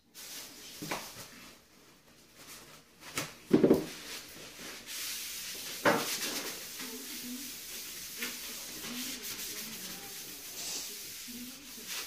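A cloth rubbing over a sheet of steel, wiping off its grease with degreasing solvent. There is a sharp knock about three and a half seconds in and another near six seconds, then the wiping goes on steadily.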